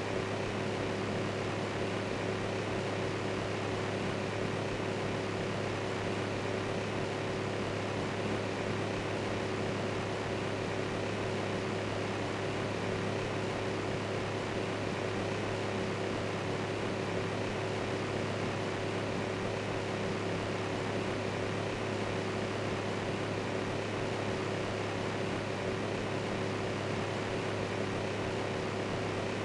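Electric fan running steadily: an even whooshing hiss with a constant low hum.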